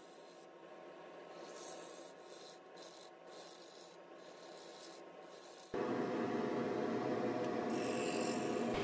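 Bowl gouge cutting a spinning cedar bowl blank on a wood lathe: an uneven scraping rub of steel shearing off wood shavings. About two-thirds of the way in the sound jumps abruptly to a louder, steady running noise.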